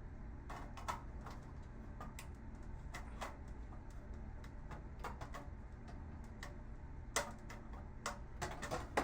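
Irregular small clicks and ticks of a hand tool working the little twist-off fasteners out of a computer monitor's circuit board, a few of them louder near the end, over a steady low hum.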